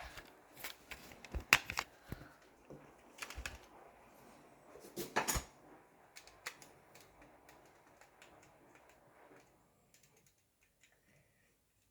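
Irregular sharp plastic clicks and knocks of a home alarm detector's casing and battery being handled as the detector is disconnected. The clicks thin out after about six seconds.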